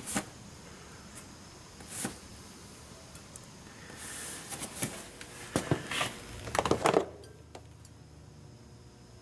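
Workshop handling noises: scattered clicks and rustles, then a cluster of sharp knocks and clatter about five to seven seconds in as a grease tube is put down and a MIG welding gun is picked up, followed by a faint steady hum.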